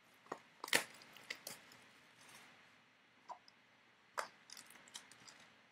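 Hands opening a cardboard box of trading-card packs and handling the wrapped packs: scattered crinkles, taps and scrapes. The loudest comes under a second in, and a quick run of them comes between about four and five and a half seconds.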